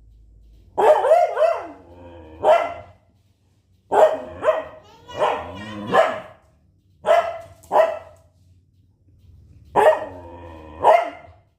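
A husky barking repeatedly in loud, yowling barks that slide in pitch, about a dozen over the stretch, coming in clusters with short pauses between.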